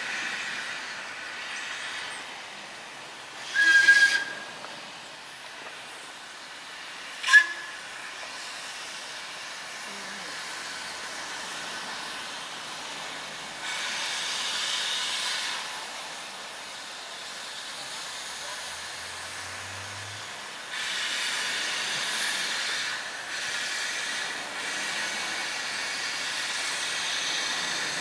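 Small steam tank locomotive approaching, with a steady hiss of steam. Two short whistle blasts about four and seven seconds in, the first about half a second long and the second a brief toot, are the loudest sounds. The hiss grows louder for a couple of seconds from about fourteen seconds in, and again from about twenty-one seconds in.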